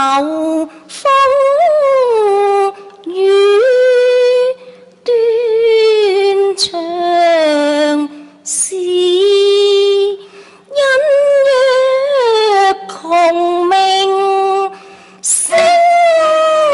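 A woman singing Cantonese opera (yuequ) in long held notes that slide and waver in pitch, phrase after phrase with short breaks between.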